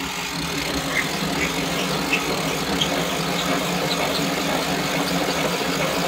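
Jakks Pacific Hulk Smash RC toy vehicle's small electric motor and plastic gearing whirring steadily as the toy spins in place, with light scattered clicks.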